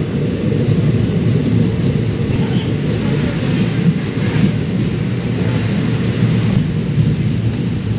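Steady low rumble of a moving passenger train, heard from inside the coach.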